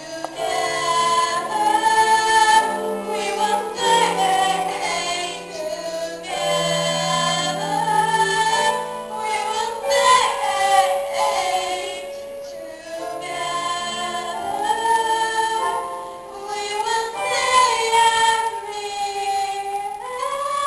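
A musical theatre song: voices singing a melody with long held notes over instrumental accompaniment.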